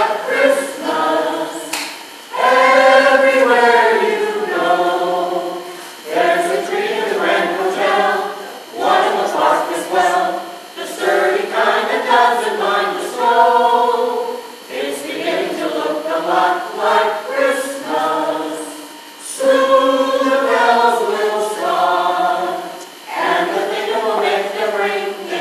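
Small mixed choir of men and women carolers singing a Christmas carol a cappella, in sung phrases of a few seconds each with short breaks between them.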